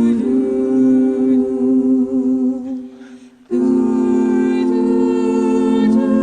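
Slow music of long, steady held notes that fades away about three seconds in and starts again abruptly half a second later: the join between two songs of a medley.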